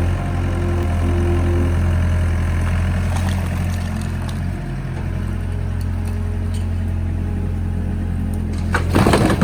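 Diesel engine of a Doosan excavator running steadily, with a brief loud clatter near the end.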